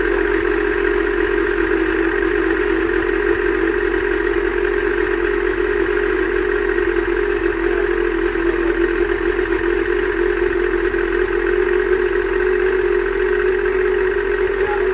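Mercury outboard motor running steadily, test-run in a water-filled tank shortly after being started.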